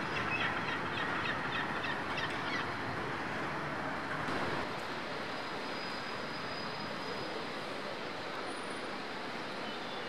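Steady urban background din, a continuous rumble and hiss like distant traffic or rail. In the first two or three seconds it carries a quick run of short, high chirps.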